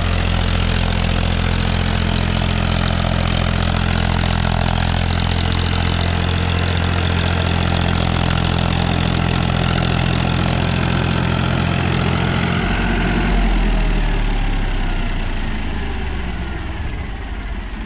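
Powertrac Euro 50 tractor's three-cylinder diesel engine running steadily under load at about 1800 rpm in low first gear, driving an 8-foot rotavator churning soil. About thirteen seconds in, the rotavator noise drops away and the engine note falls, then fades as the run is wound down.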